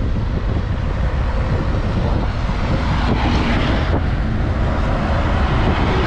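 Motorcycle riding at road speed: wind rushing over the microphone on top of a steady engine rumble. An oncoming truck passes close by near the end.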